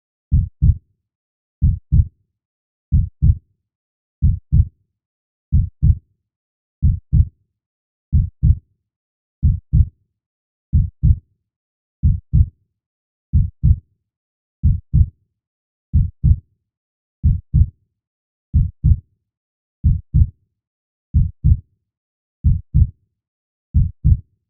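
Heartbeat sound: a steady, low double thump (lub-dub) repeating about every second and a half, roughly 42 beats a minute, with silence between beats.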